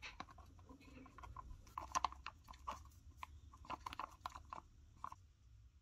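Stir stick scraping and clicking against the inside of a thin plastic cup while mixing a thick white mixture: light, irregular scrapes and clicks in small clusters that stop about five seconds in.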